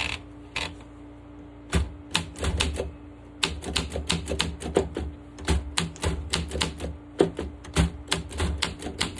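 Olympia SM7 manual typewriter being typed on: sharp, irregular key strikes, several a second, that start in earnest about two seconds in after a couple of single clicks.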